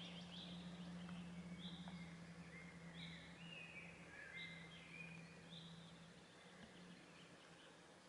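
Faint birdsong: several birds singing short, repeated chirping phrases, over a steady low hum that weakens about six seconds in.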